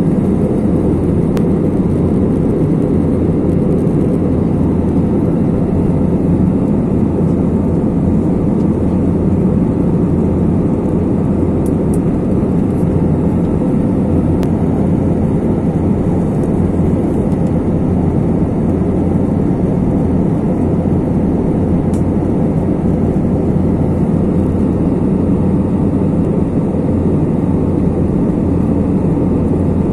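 Cabin noise of an Airbus A320-family jet airliner at cruise: a steady, loud, low rush of engine and airflow noise heard from inside the cabin.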